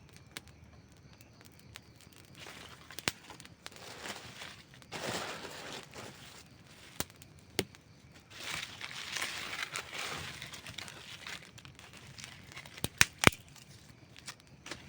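Wood campfire crackling, with scattered sharp pops (a loud pair near the end) between swells of hissing from the burning wood.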